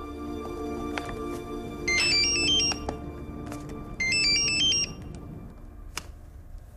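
Mobile phone playing a melodic electronic ringtone, two short rings about two seconds apart, over soft background music.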